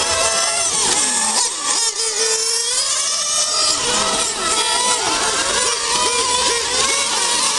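Several radio-controlled model racing cars with small nitro engines running at high revs, overlapping, each one's pitch rising and falling again and again as it accelerates down the straights and lifts off for the corners.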